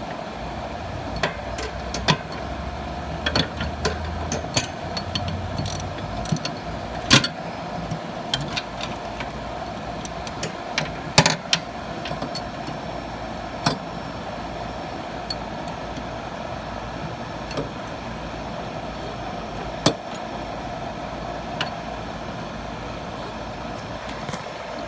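Scattered clicks and sharp knocks of a rubber deck belt and hands working against the metal pulleys and steel deck of a Scag TigerCat mower as the belt is fitted, over a steady background hum with a low rumble in the first few seconds.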